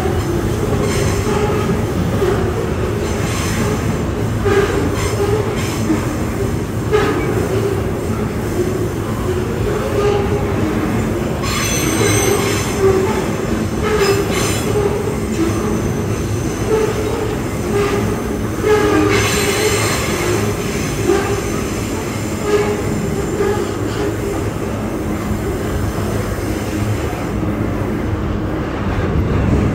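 Double-stack container freight train rolling by with a steady low rumble from its wheels and cars. Brief bursts of high-pitched wheel screeching rise over it, most clearly twice.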